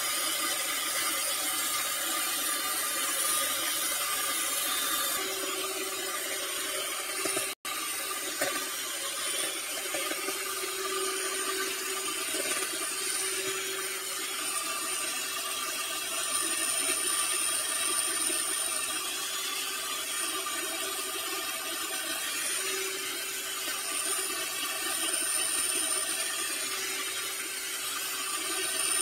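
Electric hand mixer (Miyako) running steadily at high speed, its beaters whipping eggs and sugar in a plastic bowl until foamy. The sound cuts out for an instant about eight seconds in.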